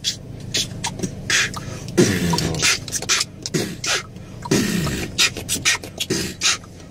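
Vocal beatboxing: a rhythm of short, sharp hissing snare and hi-hat sounds mixed with lower booming bass hits that fall in pitch.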